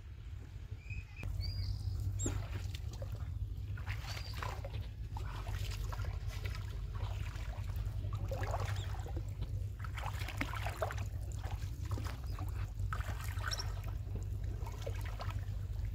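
Shallow pond water splashing and sloshing in irregular strokes as a person wades through it and works a large aluminium pot through the water.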